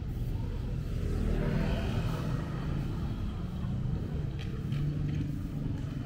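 Street traffic: a motor vehicle's engine running close by, a steady low rumble that swells briefly about two seconds in.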